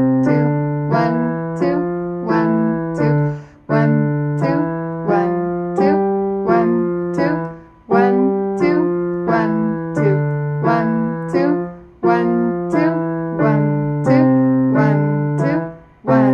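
Yamaha digital piano played with both hands: a simple four-finger exercise phrase in 2/4, single notes at about two a second in a low and a higher register together. The playing falls into four phrases of about four seconds, each ending with a brief break before the next.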